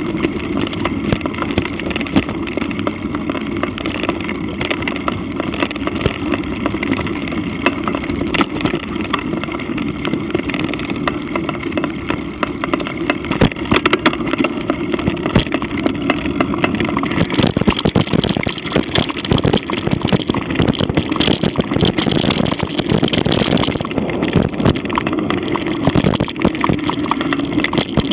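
Mountain bike being ridden along a dirt singletrack trail: a steady rolling drone with frequent knocks and rattles of the bike over roots and bumps, busier in the second half.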